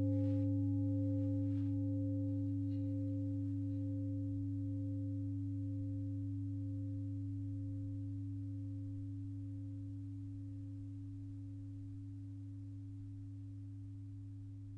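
Struck singing bowl ringing out and slowly fading: a deep hum with several higher overtones, one of them wavering.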